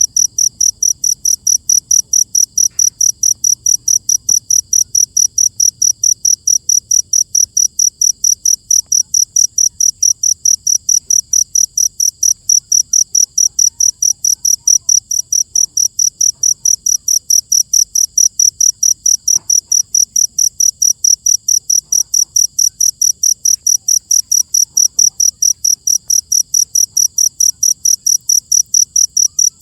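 Cricket chirping steadily: a loud, high-pitched chirp repeated evenly, nearly three times a second.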